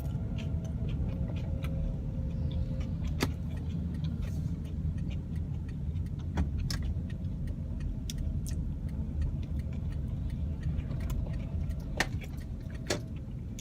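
Car engine and road rumble heard from inside the cabin while driving, with a few sharp clicks and knocks from inside the car.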